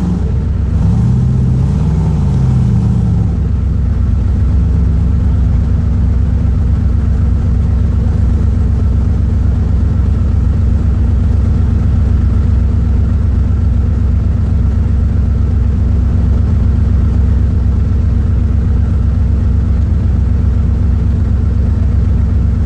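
Off-road vehicle engine idling steadily with a deep rumble. In the first three seconds an engine is revved up and down a few times.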